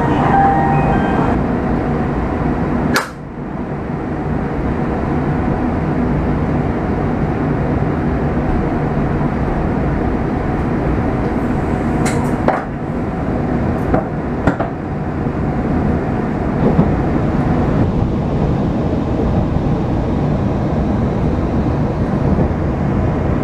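Shinkansen bullet train running, a steady rumble of wheels and motors heard from inside the carriage as it pulls out of a station. There is one sharp knock about three seconds in, and a few short clacks come about halfway through as it runs over track joints and points.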